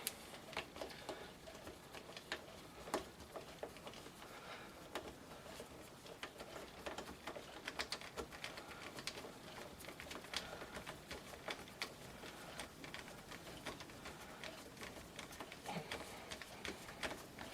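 Faint, irregular light clicks and scraping from hand-working a rubber AR-15 pistol grip with a tool.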